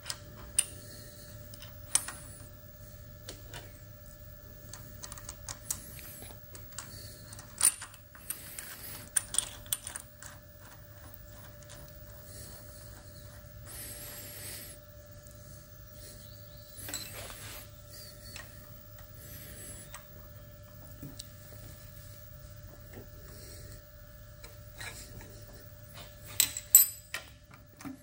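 Small metal clicks, taps and scrapes as a gear cutter is turned by hand on a milling machine arbor, its teeth passing a dial test indicator's stylus, over a faint steady electrical hum. A quick cluster of louder clicks comes near the end.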